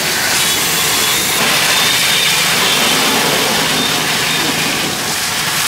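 High-pressure washer jet spraying water onto a car's wheel and lower body panels: a loud, steady hiss.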